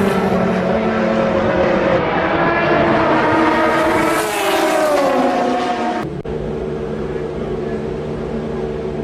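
Chevrolet Corvette C8.R race car's V8 at racing speed, its pitch falling, rising and falling again through gear changes. About six seconds in the sound cuts abruptly to a quieter, steady engine drone.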